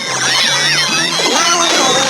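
Cartoon sound effects laid over music: a high warbling tone that wobbles up and down for about a second, then a few short held pitched notes.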